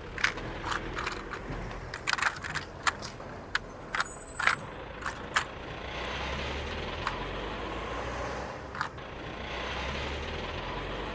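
A string of sharp clicks, clinks and scrapes from small hard objects being handled, followed about six seconds in by a steady hiss with a few more clicks.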